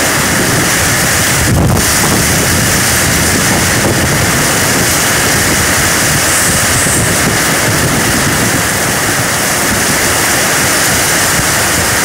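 Heavy rain pouring down in a storm, driven by strong gusting wind, as a loud steady rush with wind buffeting the microphone.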